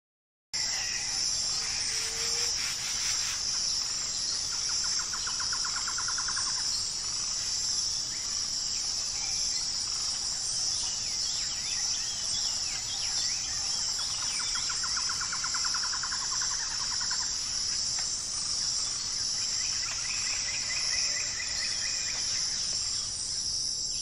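Steady high-pitched chorus of insects, crickets or cicadas, starting about half a second in, with scattered bird chirps and a few rapid trills over it.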